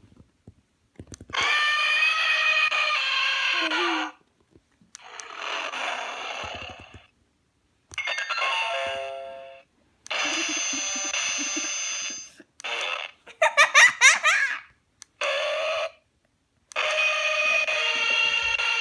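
A string of separate sound-effect clips played one after another, each one to three seconds long with silence between. They include steady electronic tones, a burst of hiss, a ringing tone that fades away, and quick rising pitch glides like a whistle.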